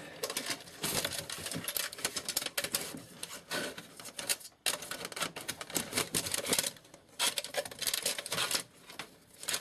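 Rapid, irregular clicks and rattles of a recessed can light's metal housing and its wiring being handled and pushed into place.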